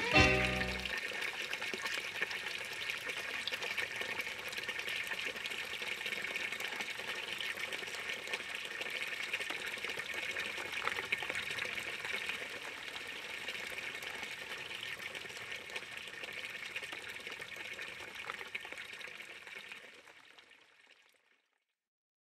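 Water running steadily with an even, splashy hiss, fading away near the end.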